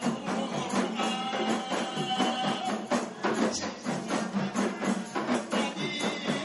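Kompang frame drums beaten by a group in a fast interlocking rhythm. A man's held sung notes run over the drums in the first half, then the drums carry on alone.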